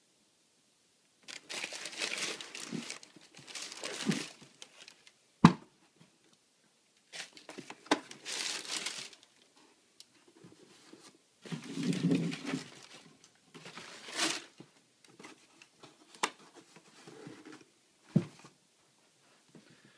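Packing paper crinkling and rustling in irregular bursts as a pair of sneakers is handled, with a sharp knock about five seconds in.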